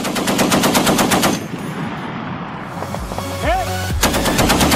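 M2 Browning .50-calibre heavy machine gun firing in bursts, at about ten rounds a second: a first burst of just over a second, then a second burst starting about four seconds in.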